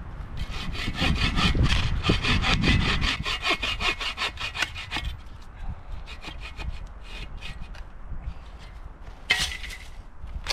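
A hand saw cutting through dead wood in quick back-and-forth strokes, loud for the first few seconds, then slower and fainter, with a sharper rasp near the end.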